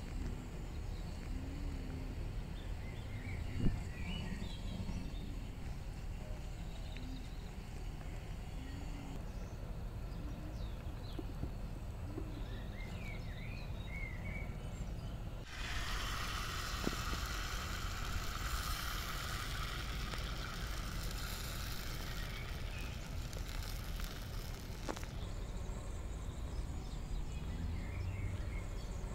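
Outdoor background with a steady low rumble and scattered short bird chirps, and one sharp knock about four seconds in. Just past halfway a steady hiss comes in suddenly and cuts off about ten seconds later.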